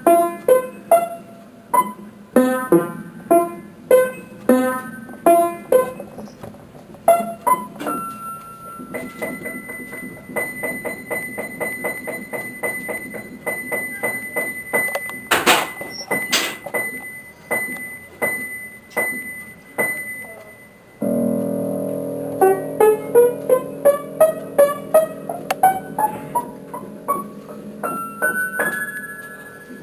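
Background piano music: struck notes and chords, with a held chord under a run of rising notes near the end.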